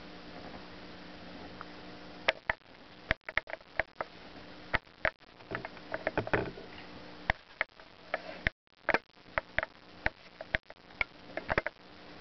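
Cockatiel pecking at and eating a piece of cooked egg noodle on a wooden tabletop: irregular sharp beak taps and clicks, starting about two seconds in.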